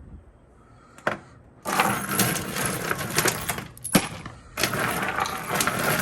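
Metallic rattling and clicking in two long bursts of about two seconds each, with sharp single clicks about a second in and again between the bursts.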